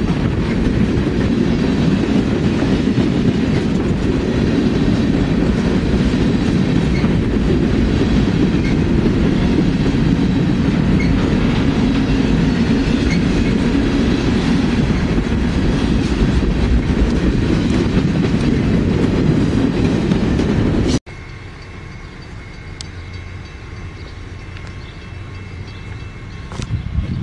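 Freight train of tank cars and boxcars rolling past close by at steady speed, a loud, steady noise of wheels on rail. It cuts off abruptly about three quarters of the way through, leaving a much quieter background.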